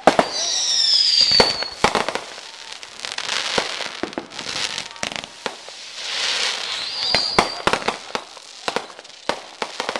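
Aerial fireworks launching and bursting: a string of sharp bangs and crackling pops. A high whistle falls in pitch for about a second soon after the start, and a shorter whistle comes around seven seconds in.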